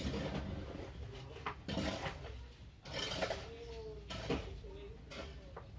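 Faint, unclear voices in the background with light clicks and clatter, broken by short bursts of hiss.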